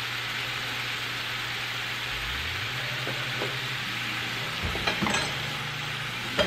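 Seasoned chicken breast strips sizzling steadily as they brown in a nonstick frying pan, with a few light clicks about five seconds in.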